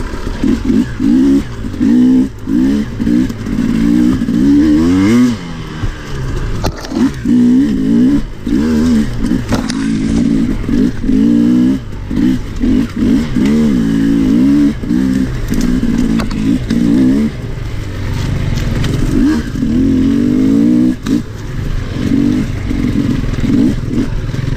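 Two-stroke enduro dirt bike being ridden, its revs rising and falling constantly as the throttle opens and shuts, with several short throttle-off dips and a few sharp knocks and clatters.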